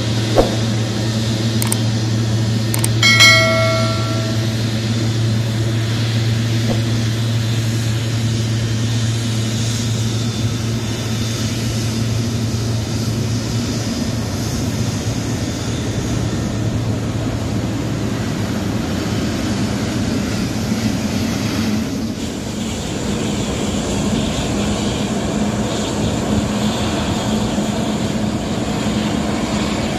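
Jet engines of a Saudia Boeing 777-300ER running at taxi power as the airliner taxis, a steady rushing engine noise with a low hum that fades out about halfway through. A brief tone sounds about three seconds in.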